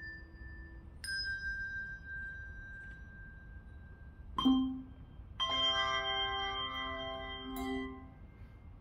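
Handbells ringing. A single high bell sounds about a second in and rings on. A low bell is struck briefly a little after four seconds, and about a second later a chord of several bells rings for some two and a half seconds before it is damped.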